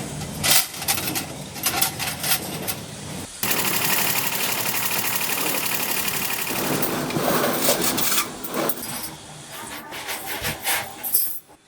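Metalworking machinery and metal parts in a workshop: rapid clattering and knocking, then a steady loud grinding-like noise for about five seconds from about three seconds in, then scattered clatter again.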